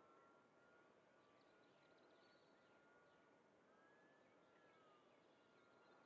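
Near silence, with the faint whine of a distant E-flite UMX Waco RC plane's small electric motor and propeller, its pitch sagging and rising slightly as the plane moves. Faint bird chirps come in between about one and three seconds in.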